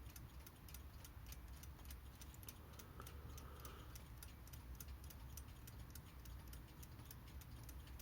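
Haller Beatall alarm clock movement ticking faintly and evenly, about four to five ticks a second. The clock is running poorly with a feeble balance amplitude, which the owner thinks might be due to worn balance cups.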